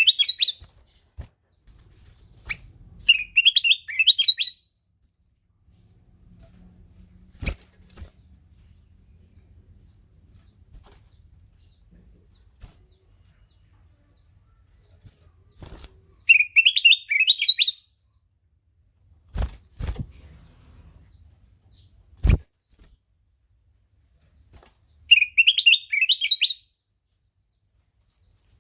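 Kutilang emas bulbul singing three short, warbled phrases that climb in pitch, with long pauses between them. A steady high whine runs underneath, and a few sharp knocks fall between the phrases.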